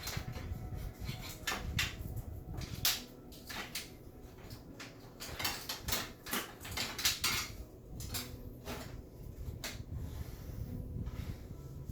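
Irregular clicks, knocks and rattles of metal and plastic parts being handled and pulled out of a desktop PC case.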